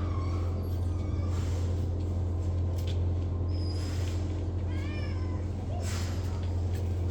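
Domestic cat meowing, with one clear rising-and-falling meow about five seconds in, over a steady low hum.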